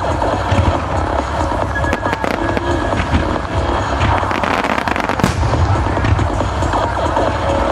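Aerial fireworks going off in quick succession: a dense run of bangs and crackling with a low rumble under it, and music playing along.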